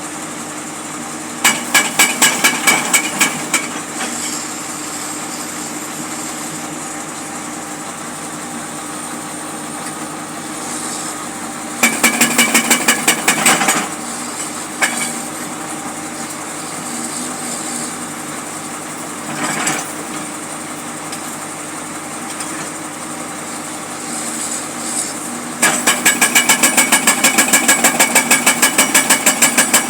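Jackhammer breaking out old material, hammering in three spells of rapid, even blows at about five a second: near the start, around the middle, and from near the end onward. An engine runs steadily underneath throughout.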